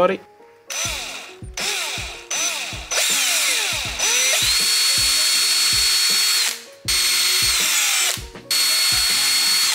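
Cordless drill with a thin bit boring small holes into a wooden lure body. It goes in several short runs, each spinning up with a rising whine and winding down at the end; the longest run lasts about two and a half seconds.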